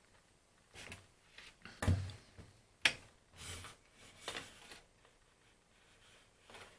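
Handling noises on a workbench while test probes and small phone parts are moved about: a soft thump about two seconds in, a sharp click about a second later, and a few brief rustles.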